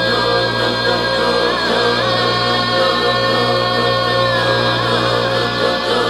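Tuvan throat singing: a steady low vocal drone with a high, whistling overtone melody that holds and shifts pitch above it.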